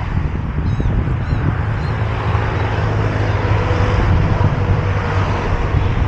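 Road traffic close by: a steady low engine rumble and hum. Gulls call a few times, briefly and high, about a second in.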